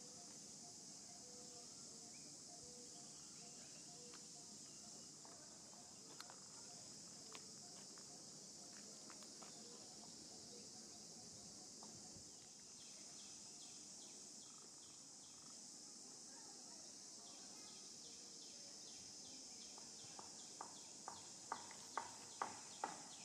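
Faint outdoor ambience: a steady high-pitched insect drone. In the last three seconds a run of sharp clicks comes about two or three a second, getting louder.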